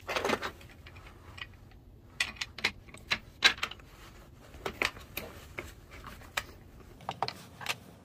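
Irregular plastic clicks and taps from a MIG welding spool gun's plastic housing being handled and closed up, with a clustered clatter at the start and scattered sharp clicks after.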